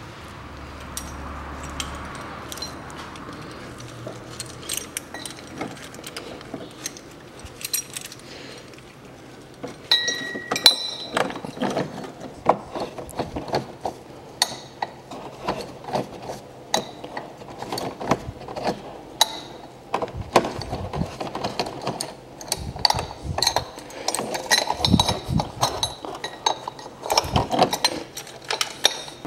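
Metal tools clicking and clinking on the air-conditioning compressor's clutch pulley as a three-jaw gear puller is fitted and tightened with a wrench. There are rapid ratchet-like clicks, and they grow dense from about ten seconds in.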